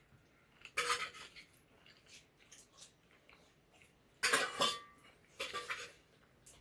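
Dishes and utensils clinking and clattering in a few short bursts: one about a second in and two more near the end.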